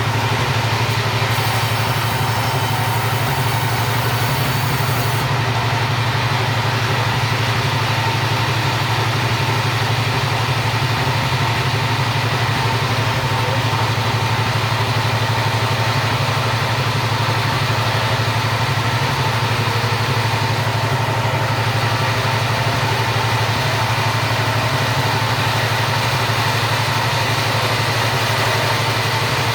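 Chainsaw engine running at a steady, unchanging pitch throughout.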